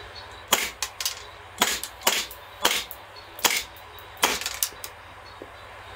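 WE M1911A1 gas blowback airsoft pistol firing about eight shots, roughly one every half second to a second; each shot is a sharp crack with the slide cycling.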